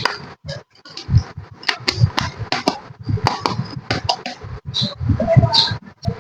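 Small plastic toy kitchen pieces being handled and set down, a run of irregular clicks, taps and clinks with a couple of short squeaks near the end.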